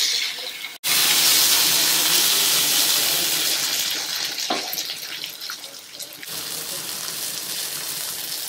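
Marinated pomfret sizzling in hot butter on a grill pan: a steady hiss that cuts out for an instant about a second in, comes back loud, then eases off over the next few seconds.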